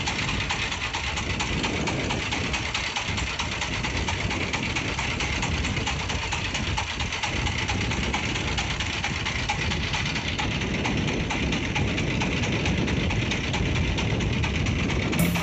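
Boat engine running steadily at idle.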